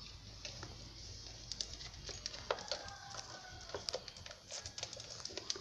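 A rooster crowing once in the background, one held call of about a second, over scattered light clicks and taps.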